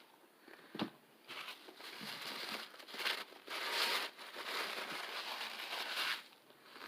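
Paper fast-food wrapper being handled and crumpled: a sharp click just under a second in, then about five seconds of continuous crinkling.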